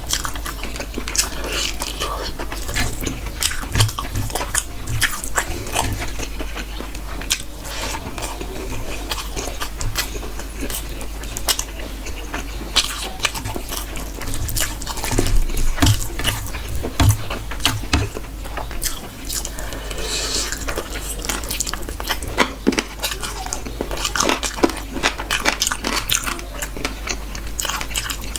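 Close-up eating sounds: a person biting and chewing food, with many short wet clicks of the mouth, over a steady low hum.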